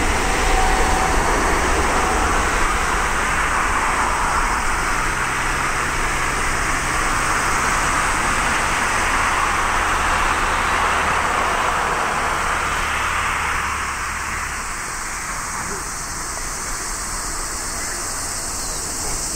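Twin-engine jet airliner's engines at takeoff thrust, a loud steady roar as it accelerates down the runway, easing off about fourteen seconds in as the aircraft pulls away.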